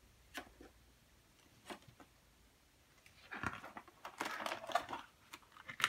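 Large paper page of a spiral-bound picture book being turned by hand, rustling and crinkling about halfway through, after a few light taps of handling.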